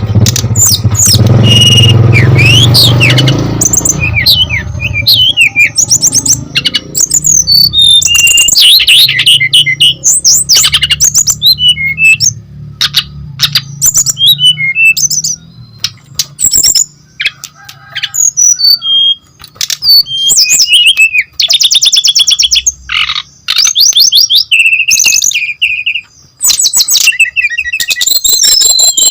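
Brown-chested jungle flycatcher singing in full, lively song: a long run of varied whistled phrases, gliding notes and fast rattling trills, broken by short pauses. A low hum sits under the first few seconds.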